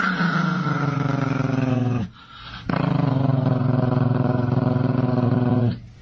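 Chihuahua growling in two long, low growls. The first breaks off about two seconds in and the second starts about half a second later, running until just before the end.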